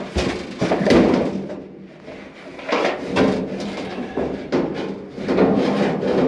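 Clothes dryer drum being pulled out of its cabinet: irregular clunks, knocks and scraping, with the sharpest knocks near the start and about a second in.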